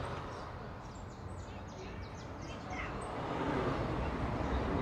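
Street traffic rumble with a quick run of short, high bird chirps about a second in; the traffic noise grows louder near the end.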